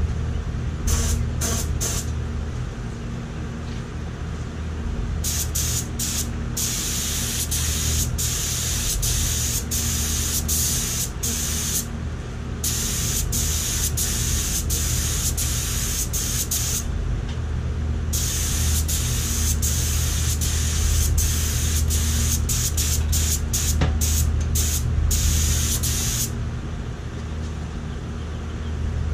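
Gravity-feed air spray gun hissing as it atomizes Cerakote ceramic coating, in a few short trigger blasts at first and then long pulls broken by brief pauses, cutting off cleanly each time the trigger is released. A steady low hum runs underneath.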